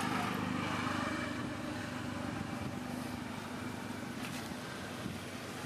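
Steady outdoor background with a low, even motor hum and a couple of faint clicks.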